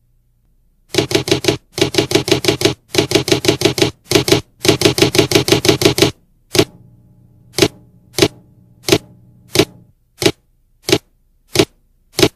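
Typewriter-style typing sound effect: five quick runs of key clicks, one click per letter of a typed-out title, then nine single, evenly spaced clicks as a row of question marks is typed.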